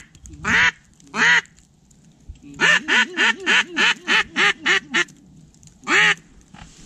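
Duck call blown in loud quacks: two single quacks, then a quick run of about ten at roughly four a second, then one more, calling to a passing flock to turn it back toward the decoys.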